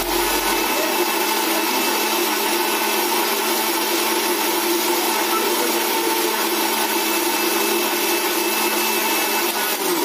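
Electric mixer grinder running steadily at speed, blending bananas with milk and sugar in its jar: a loud, even motor whir with a steady hum in it.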